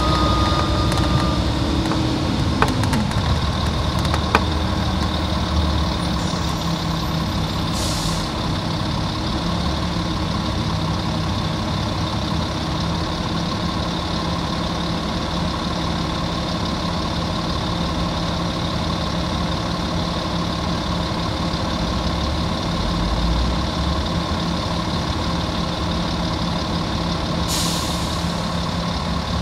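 Volvo Olympian double-decker bus with a Volvo D10A straight-six diesel: a falling whine over the first two seconds or so as the revs drop, then steady idling. Two sharp clicks come in the first few seconds, and there are two short hisses, about eight seconds in and near the end.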